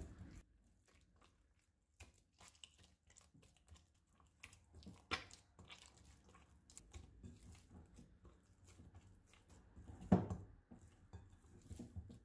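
Sticky pizza dough being kneaded by hand in a glass bowl, making irregular soft squelches, slaps and clicks that begin about two seconds in, with a louder slap about ten seconds in.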